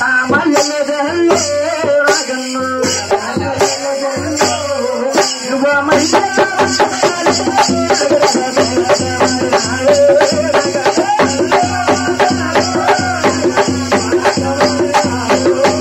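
Folk devotional music: a sung melody over a shaken rattle that keeps a steady beat.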